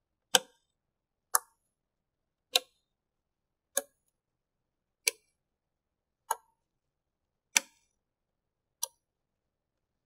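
DDR4 memory modules being pressed home one after another into their motherboard DIMM slots, each one latching with a sharp click as its slot's retention tabs snap shut. Eight clicks, evenly spaced about a second and a quarter apart.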